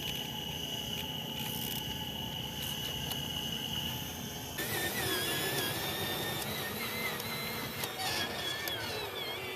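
Small electric motors and gearboxes of radio-controlled construction models whining. A steady high whine changes suddenly about halfway through to a wavering whine that rises and falls in pitch with the motor's speed, sliding down near the end.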